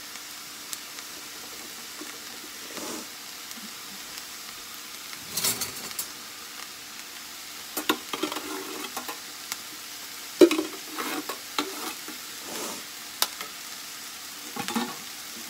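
Chopped onion and green pepper sizzling steadily in a skillet, while a metal spoon scrapes baked beans out of a can and stirs them in a bowl. Several sharp scrapes and clinks of the spoon stand out, the loudest about ten seconds in.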